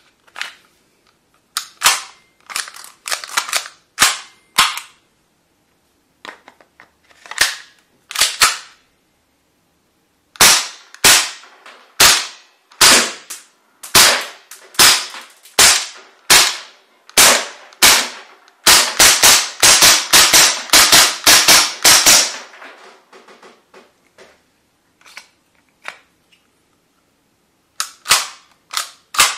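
Tokyo Marui H&K USP gas-blowback airsoft pistol firing: sharp pops with the slide cycling on each shot. The shots come about a second apart at first, then in a fast string of about five a second for some three seconds. A few clicks near the end come as a magazine is handled.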